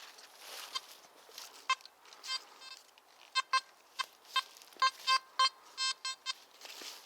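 Nokta Makro Simplex Plus metal detector giving a run of short, high beeps at one pitch, a few early on and then about a dozen in quick, uneven succession near the middle and end, as the coil passes over metal; faint rustling in between.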